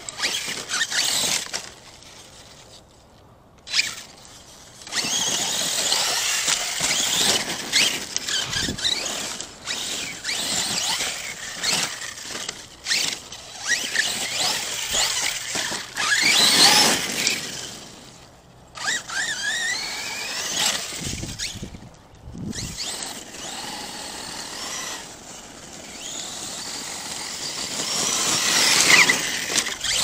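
ARRMA Kraton 6S RC monster truck's brushless electric motor and drivetrain whining, rising and falling in pitch as the throttle is applied in bursts with short pauses. The tyres scrabble and crunch over loose dirt and gravel.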